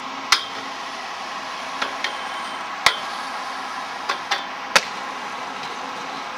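Inline skates clacking sharply on hard ground, seven hard knocks at uneven spacing, over a steady background hiss.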